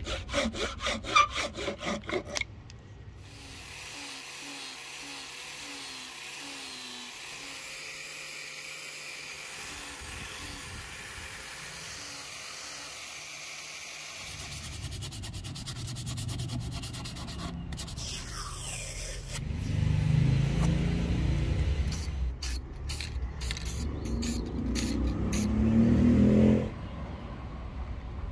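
Quick rasping strokes of a steel file on the end grain of a rosewood axe handle for about two seconds. Then a random orbital sander runs on the handle, getting louder about halfway through and stopping abruptly near the end.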